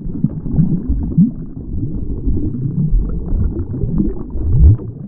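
Deep rumbling, bubbling sound-design bed of a logo intro, with short low swooping tones rising through it several times.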